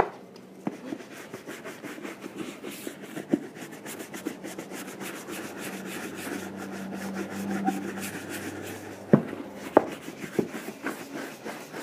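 A small bristle brush scrubbing leather lotion into a leather boot's upper, with quick, rapid back-and-forth brush strokes. Two sharp knocks come about nine and ten seconds in.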